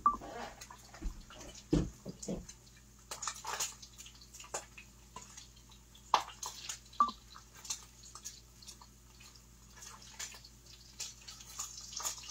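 Bacon frying in a pan at the stove, crackling with scattered small pops, with a few louder knocks and clatters of cookware near the start and about six seconds in.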